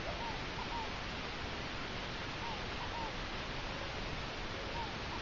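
Open-air rural ambience: a steady, even hiss with faint short bird chirps recurring about once a second.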